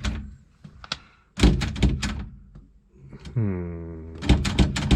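A quick run of knocks and thunks. Then a short low hum drops in pitch and holds, and more knocks follow near the end.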